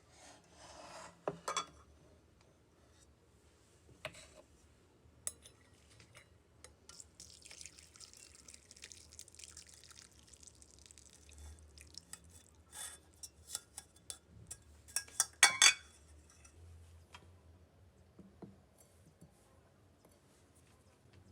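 Kitchen preparation sounds: liquid being poured for a few seconds, with scattered clinks and knocks of glassware and utensils. The loudest is a quick cluster of clinks about three-quarters of the way in.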